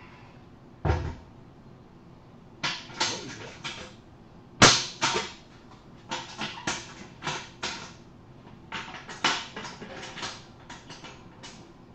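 Irregular clatter of knocks, clacks and scrapes from equipment being handled by hand, with a low thud about a second in and the loudest sharp knock a little before the middle.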